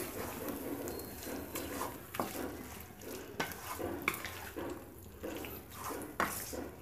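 Wooden spatula stirring and scraping thick, oily lemon pickle around a nonstick kadai, with a wet squelching scrape on each stroke. The strokes come irregularly, roughly one every half second to a second.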